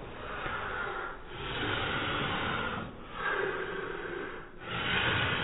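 Heavy, rhythmic breathing, in four long breaths with short pauses between them, from a child straining to pull on the jump ropes.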